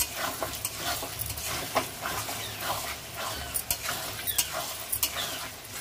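Metal spatula stirring and scraping through frying masala and vegetables in a metal kadai, with repeated short scrapes and clicks against the pan over a steady sizzle of hot oil.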